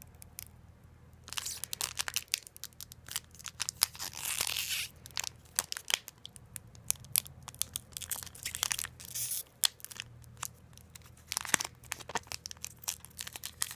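Foil Magic: The Gathering booster pack wrapper torn open and crinkled by hand: a run of sharp crackles, with a longer ripping tear about four seconds in and another about nine seconds in.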